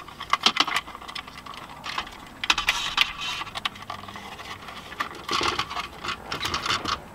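Hard plastic dashboard trim panel of a BMW F30 being handled and lined up against the dash, giving a run of small clicks and rattles, busiest about two and a half seconds in and again around five seconds in.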